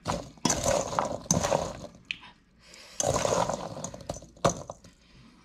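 A metal spoon stirring halved crabapples in a stainless steel bowl: the fruit scrapes and clatters against the metal in two long bouts of stirring.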